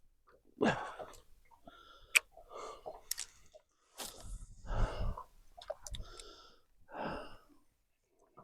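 A gull calling several times in short, harsh bursts.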